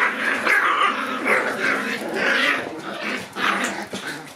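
Two-month-old Shiba Inu puppies vocalising as they play, a quick run of short growly yaps one after another.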